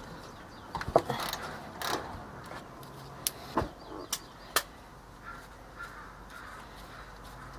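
Metal clinks and knocks from hand tools working on a rear disc brake caliper while it is being unbolted, several sharp clicks spread over the first five seconds.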